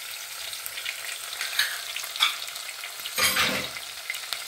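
Sliced onions and green and dried red chilies frying in oil in a stainless steel pot: a steady sizzle with scattered crackles. A louder rush of noise comes a little past three seconds in.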